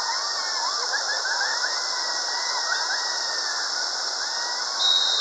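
Whitewater rapids rushing steadily around rocks, with faint voices calling out over the noise of the water.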